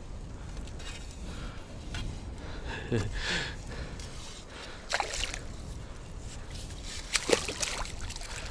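Water sloshing as a landing net is swept through shallow water and a hooked carp thrashes at its rim, with a few sharper splashes about three, five and seven seconds in.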